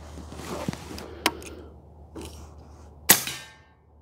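A single shot from a regulated .22 Airforce Talon SS PCP air rifle fitted with a homemade plenum, a sharp crack about three seconds in with a brief ringing tail. A smaller click comes about a second in.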